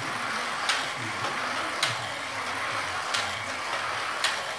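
Carrera slot car running laps on its plastic track: a steady whirring hiss from the car, with a sharp click about once a second, four in all.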